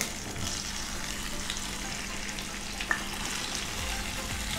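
Tofu pieces sizzling steadily in hot oil in a non-stick wok as they are laid in one by one, with a light tap just before three seconds in.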